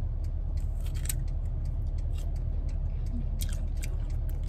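Steady low rumble of a car idling, heard from inside the cabin, with a fast, regular light ticking over it. A few louder short crunches come from chewing a bite of firm green fruit.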